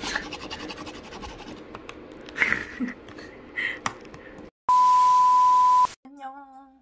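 Plastic cling wrap crinkling and crackling as it is peeled off a takeout food container. About four and a half seconds in, a loud steady electronic beep over static hiss lasts a little over a second, followed by a brief snatch of a woman's voice.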